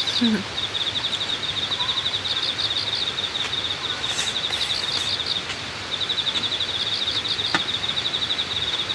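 Insects chirping in high-pitched trains of rapid pulses, pausing briefly about five and a half seconds in, with a single sharp click about seven and a half seconds in.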